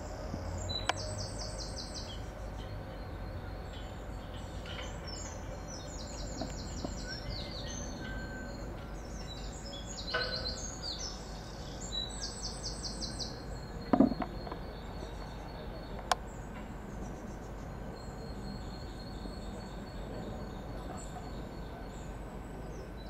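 Steady outdoor background noise with small birds singing repeated high trills through the first half. A single loud thump about 14 seconds in, and a sharp click a couple of seconds later.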